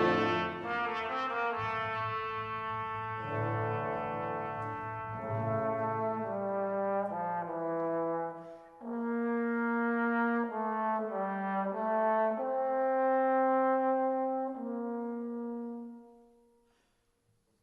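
Background instrumental music: a slow melody of long held notes, fading out near the end.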